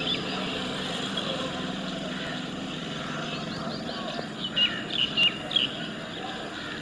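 A steady engine hum runs throughout, with a cluster of short, sharp high chirps, like birds calling close by, about four and a half to five and a half seconds in.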